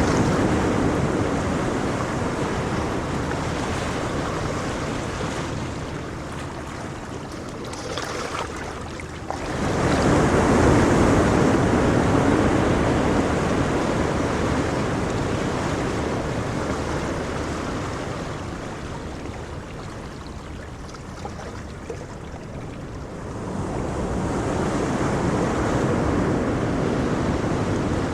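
Ocean surf: waves rolling in and slowly ebbing away, with a fresh wave swelling about ten seconds in and another near the end.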